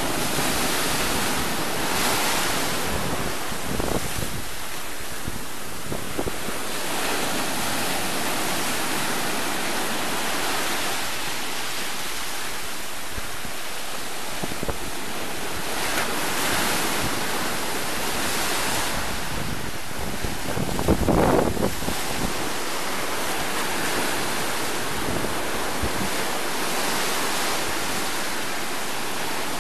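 Sea surf breaking against sandstone boulders and washing up the sand in foam, surging and easing every few seconds. Wind rumbles on the microphone, with its loudest buffet about two-thirds of the way through.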